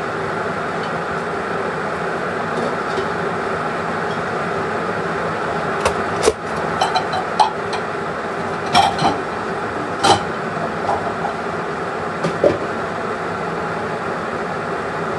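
A steady machine hum, with a handful of sharp clicks and knocks from kitchenware being handled, clustered from about six to twelve and a half seconds in.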